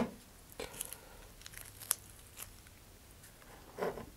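Masking tape being peeled off a model rocket's fins and body tube: a sharp snap at the start, then scattered short tearing ticks and a brief rip near the end.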